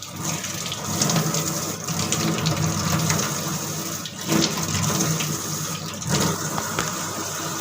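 Water running hard from a tap, a steady splashing rush that starts and stops abruptly.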